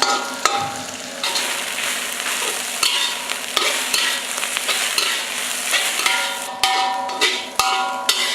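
Egg and tender leaves sizzling in a frying pan while a metal spatula stirs, taps and scrapes against it. Some of the scrapes ring briefly, more of them near the end.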